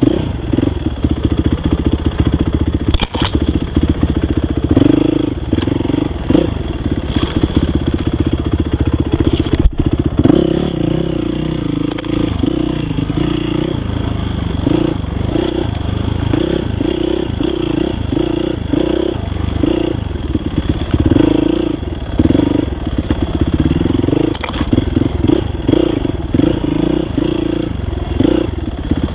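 Dirt bike engine heard from on the bike, revving up and down as the throttle is worked along a trail. Two sharp knocks come through, about three seconds and about ten seconds in.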